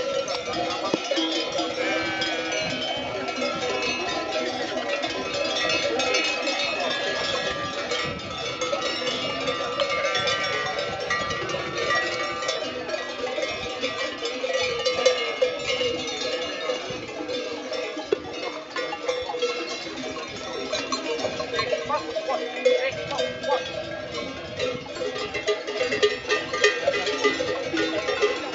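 Many bells on a moving flock of sheep, ringing and clanking together continuously.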